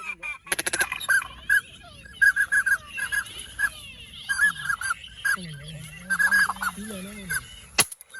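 Ducks quacking in quick runs of short, repeated calls, with a single sharp bang near the end.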